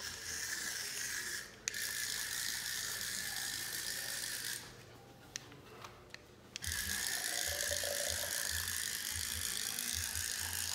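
Small motor and gears of a remote-control toy cockroach whirring as it is driven along, in spurts: a short break near the start, then a stop of about two seconds midway with a few clicks, then it runs again with low thuds under it.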